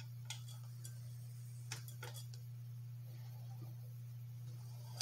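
A few faint clicks and small taps as the round wick of a center draft oil lamp is lit with a lighter, over a steady low hum.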